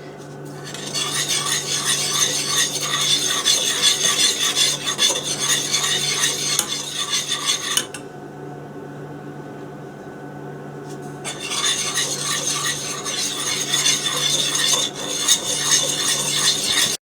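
Egg whites and sugar being whisked by hand in a pan, a fast steady scraping and clinking of the whisk against the pan. The whisking stops for about three seconds partway through, then starts again.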